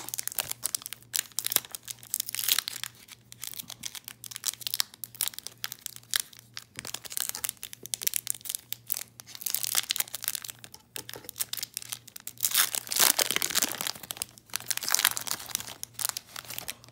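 A Topps baseball card pack's wrapper being crinkled and torn open by hand, crackling in irregular bursts, loudest about three quarters of the way through. A faint steady low hum runs underneath.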